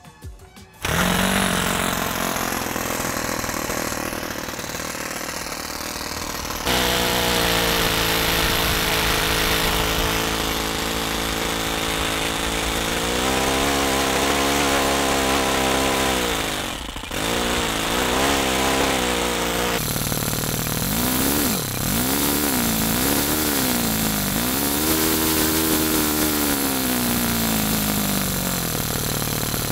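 O.S. .30 four-stroke glow engine spinning a wooden propeller. It is started with a handheld electric starter about a second in, then runs with its pitch rising and falling as the throttle is opened and closed, with several quick blips near the end. It is set to run rich for break-in.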